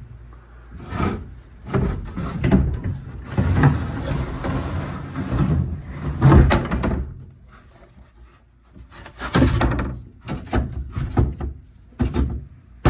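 A tight-fitting plywood floor sheet being forced into a boat hull: repeated wooden knocks and thumps, with a longer stretch of scraping in the middle as the panel is pushed and shifted into place.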